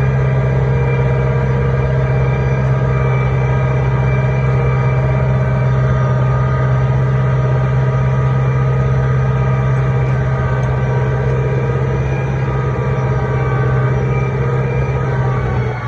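Tractor engine running at a steady speed under load, pulling a mulch-lifting implement through the field.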